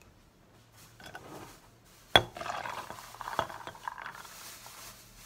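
A spoon stirring brown sugar into espresso, clinking against the glass or cup. A sharp knock about two seconds in is the loudest sound.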